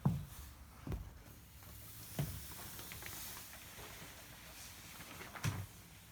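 A few soft, irregularly spaced thumps over a faint steady hiss.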